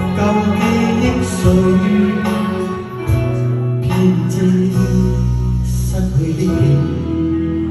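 Backing music of a Cantopop ballad.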